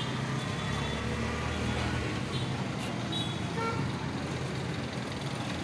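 Street traffic noise: a steady engine rumble with a few brief horn toots.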